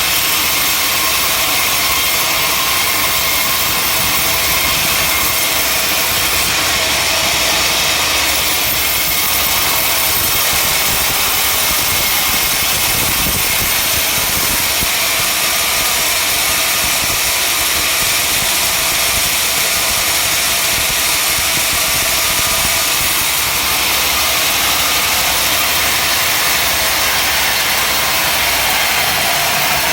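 Sawmill machinery running steadily: a loud, constant mechanical noise with no breaks.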